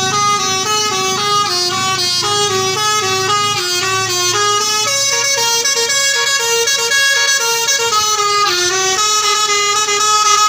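Bus 'telolet' multi-tone horn playing a quick melody, several horn tones sounding together and stepping to new notes every fraction of a second.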